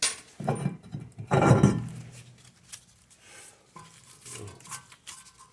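Metal tools and parts clinking and clattering as they are handled, loudest in a burst during the first two seconds, then a few lighter clicks.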